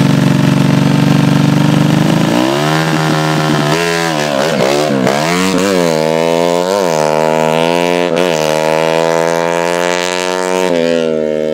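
Single-cylinder four-stroke engine of a stock 130 cc underbone motorcycle breathing through a WRC Racing aftermarket muffler. It runs at a steady low rev for about two seconds, then the bike pulls away: the note rises, swings up and down several times as the throttle is worked, and settles into a steady, higher drone as it rides off.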